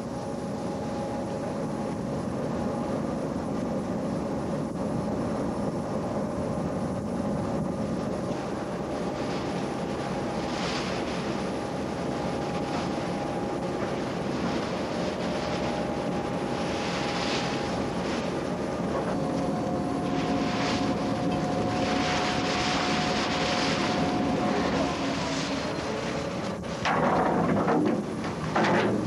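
Tugboat engine running with a steady drone, with intermittent rushing noise over it and a louder rush for a couple of seconds near the end.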